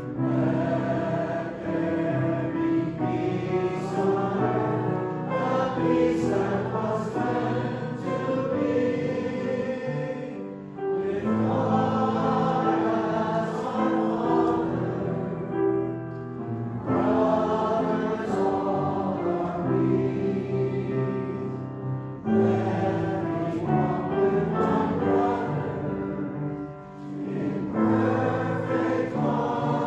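Choir singing with instrumental accompaniment, in phrases with short pauses between them.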